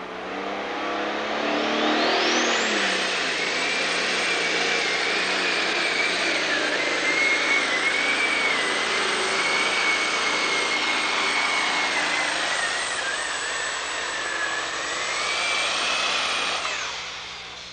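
John Deere super stock pulling tractor's turbocharged diesel engine at full throttle, dragging the weight-transfer sled down the track. A high whine climbs over the first few seconds, holds steady through the pull, and falls away near the end as the throttle comes off.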